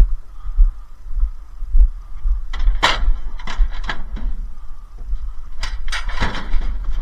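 Several sharp knocks and clanks of metal appliance casings (a washing machine and tumble dryers) being shifted on a truck's tail lift, over a steady low rumble.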